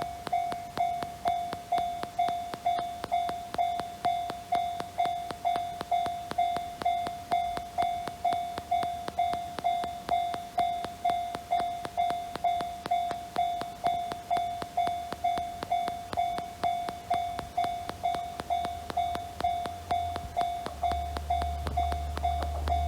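Japanese level-crossing warning bell: an electronic "kan-kan" tone struck about twice a second, steady and unchanging, signalling that a train is coming. A low rumble rises under it near the end as the train approaches.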